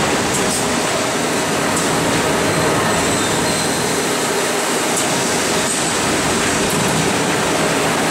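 Rotary milking parlour running: a steady mechanical rumble and hiss from the turning platform and milking machinery.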